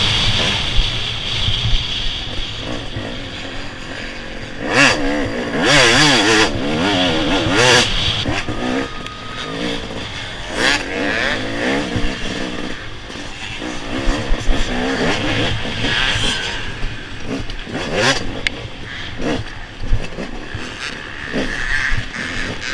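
A 250cc off-road motorcycle engine racing over rough ground, its revs rising and falling quickly as the throttle is worked, with scattered knocks and rushes of noise from the terrain. The most rapid revving comes between about four and eight seconds in.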